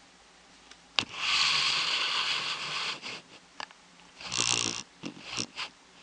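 Broom sweeping: a sharp knock about a second in, then a long bristly swish of about two seconds, followed by a shorter swish and a few light scrapes and taps.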